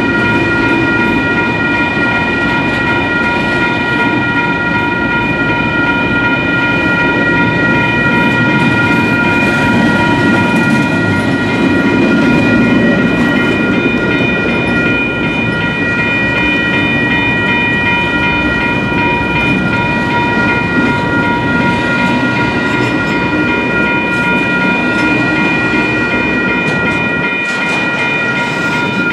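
Doublestack container freight train rolling slowly past, its wheels rumbling and clattering on the rails. A steady high-pitched ringing made of several tones runs through it.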